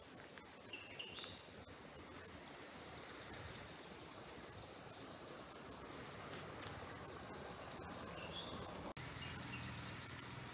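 Steady, high-pitched chorus of insects in forest, with a second, higher insect trill joining a couple of seconds in and a few short bird chirps over it.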